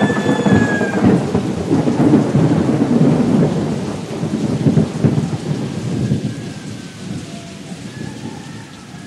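Thunder rumbling over steady rain, loud at first and fading away toward the end.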